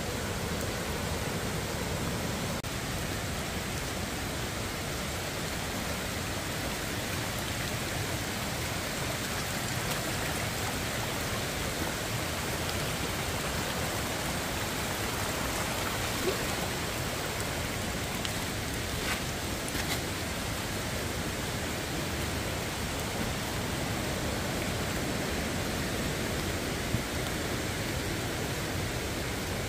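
Steady rush of water from a rocky mountain stream running through rapids, mixed with falling rain. A few faint taps stand out now and then.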